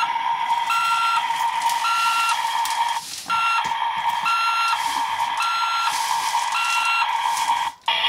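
Battery toy backhoe loader's electronic sound effects from its speaker: a steady hum with a short beep repeating about once a second, like a reversing warning. The sound drops out briefly a little after three seconds and again near the end.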